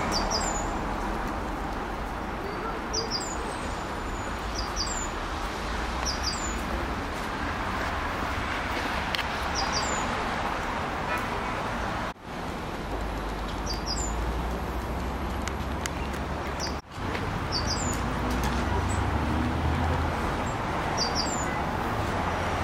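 Small birds giving short high chirps, often in quick pairs, every few seconds over a steady outdoor din of traffic with a low rumble. The whole sound drops out briefly twice, about midway and again some five seconds later.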